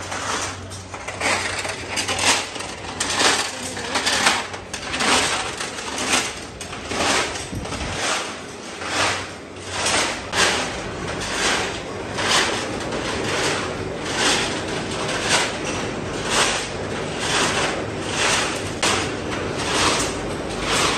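Repeated clanks of metal striking metal, about one a second, more evenly spaced in the second half: steel rods and tools being worked in a metal workshop.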